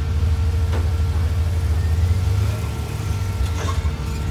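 Rock-crawler buggy's engine running at low, steady revs as the buggy crawls over a sandstone ledge, a deep even rumble.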